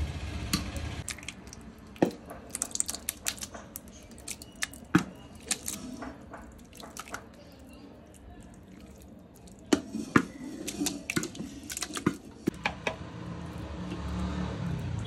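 Spoon or spatula tapping and scraping against a metal cooking pot while rice and chicken masala are layered and stirred: irregular sharp clicks in two spells, with a low handling rumble near the start and again near the end.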